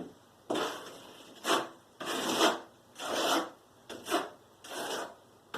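Drywall being worked by hand: a series of rough rasping strokes, about eight of them at roughly one every half second or so. Some start abruptly and fade out.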